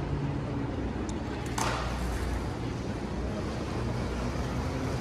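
Steady low rumble of traffic and city street ambience, with a short sharp hiss about a second and a half in.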